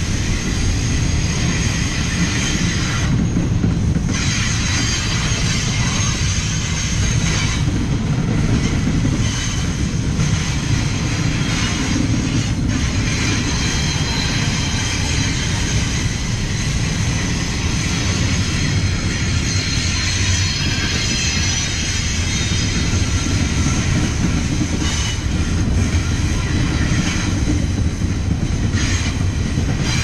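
Double-stack container cars rolling past at close range: a heavy steady rumble of steel wheels on rail with a high squeal of wheels rubbing against the rails on top, the squeal easing off briefly a few times.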